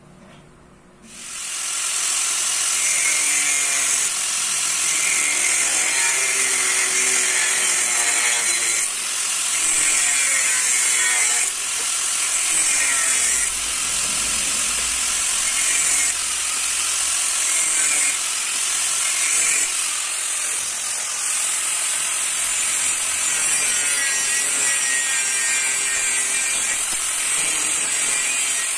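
Angle grinder with a cutting disc running and cutting through a 1-inch steel T-profile bar, a loud steady scream that starts about a second in and shifts in level every few seconds.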